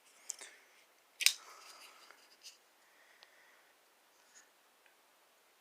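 Benchmade Mini Bugout folding knife being handled: a few light clicks, one sharp click about a second in, and faint rubbing with a few small ticks after it.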